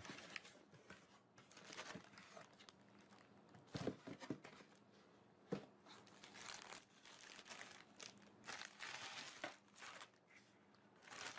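Faint, irregular crinkling and rustling of a clear plastic packaging bag as it is handled and pulled from a cardboard box. There are a few sharper knocks, around four and five and a half seconds in.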